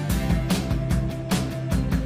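Background music with a steady, fast beat.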